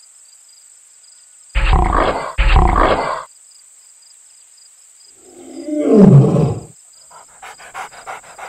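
Lion roar sound effect: two short, rough growls a little after a second and a half, then a loud roar about five seconds in that drops steeply in pitch.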